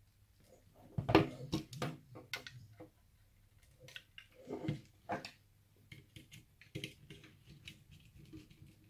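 Small clicks, snaps and plastic clatter of hand work on electrical wiring: side-cutting pliers on a blue wire, then the wire being fitted into the terminals of a wall light switch. The sharpest snap comes about a second in, with lighter ticks and knocks scattered after it.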